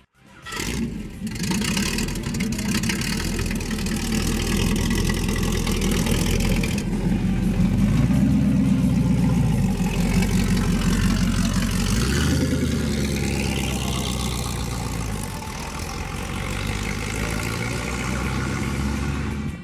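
Boss Hoss motorcycle's 350 cubic-inch Chevrolet V8 engine running. It idles low, grows louder for several seconds in the middle as it is revved, and the bike is ridden away near the end.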